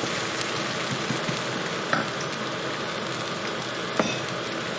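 Tomato purée frying in a non-stick pan, a steady sizzle, with a couple of knocks of the wooden spatula against the pan, the loudest about four seconds in.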